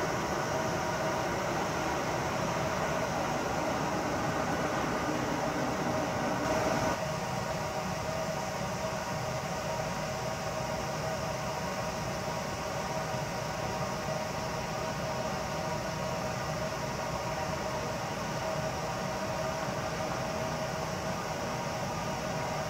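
Distant electric trains on a main line: a 281 series Haruka limited express running by, then an abrupt cut about seven seconds in to a quieter, steady rumble as a 321 series local electric train approaches and passes.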